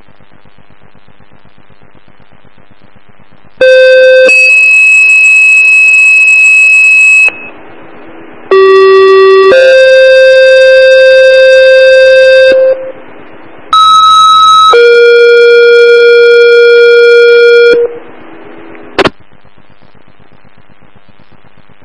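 Fire dispatch two-tone pager alert over a scanner radio: three sequences, each a short steady tone of about a second followed by a longer steady tone of about three seconds at a different pitch, with radio hiss in the gaps and a brief click near the end. The tones page out the fire and ambulance units for the call.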